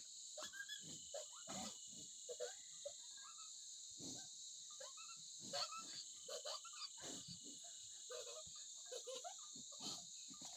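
Faint, steady chorus of insects, with many short, irregular animal calls scattered through it.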